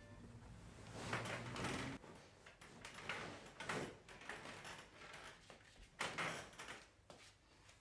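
Faint, scattered rustles and soft knocks, a handful of short sounds a second or so apart.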